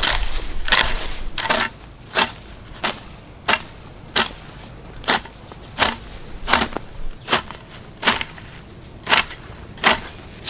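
Sharp knocks repeating at an even pace, about one every 0.7 seconds, like something being chopped or struck. Behind them a cricket keeps up a steady high trill that breaks off now and then. The first second and a half also holds a louder rustling noise.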